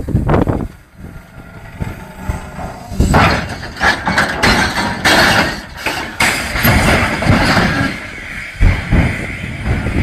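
Loaded freight hopper wagons derailing and toppling onto their sides one after another. A long run of heavy metal crashing and scraping begins about three seconds in, with a few heavy thumps near the end.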